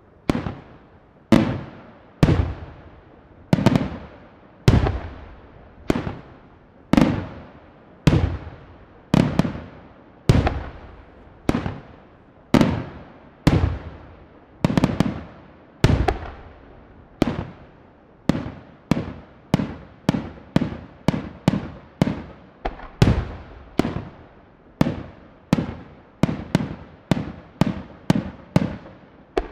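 Aerial firework shells bursting one after another, each a sharp bang followed by a long fading echo. They come about once a second at first and quicken to about two a second toward the end.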